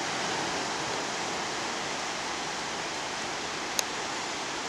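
Steady wash of ocean water and surf, an even hiss, with one brief sharp click near the end.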